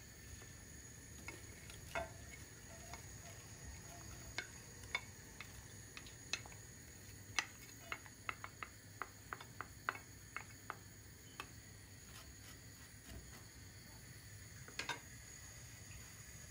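Sliced onions tipped from a ceramic bowl into a pot of oil, with a spatula scraping and tapping the bowl: faint scattered clicks and taps, coming quickly for a few seconds in the middle.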